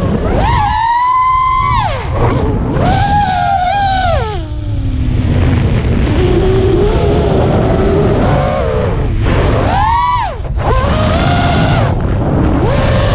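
Brushless motors and props of a 5-inch 3D FPV quadcopter whining. The pitch swoops up and down sharply with the throttle through flips and rolls, dropping away and climbing back several times, over wind rushing on the onboard microphone.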